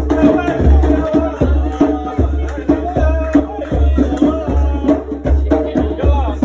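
A live band playing Moroccan music: a steady, driving drum beat with sharp clicking percussion and voices singing over it.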